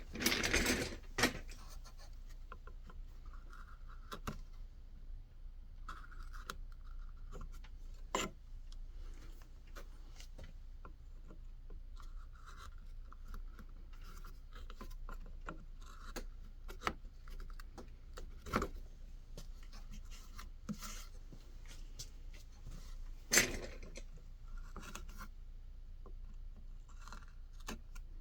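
A carving knife cutting and scraping white birch wood in repeated soft strokes, with a few sharp clicks, the loudest right at the start.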